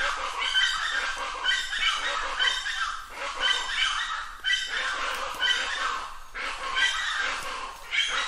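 Plain chachalacas calling: harsh, raucous squawks repeated about twice a second without a break.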